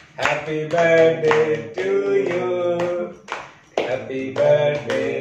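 Several people clapping along in a steady rhythm while singing a birthday song, the sung notes held long over the claps.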